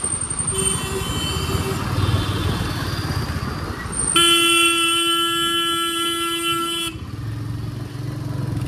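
Vehicle horn sounding in street traffic: a few short faint beeps near the start, then one loud horn blast held for about three seconds from about four seconds in, over steady motorcycle road and wind noise.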